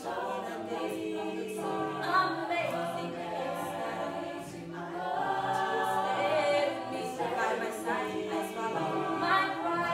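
A mixed-voice a cappella group of men and women singing together without instruments. Several voices hold stacked notes in harmony, moving from chord to chord.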